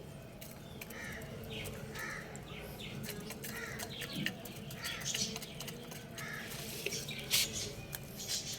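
Birds calling: a run of short calls repeating every half second or so, over a steady low hum.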